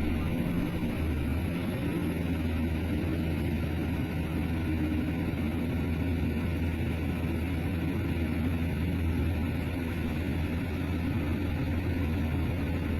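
Heavy earthmoving machine's diesel engine running steadily, a low even drone.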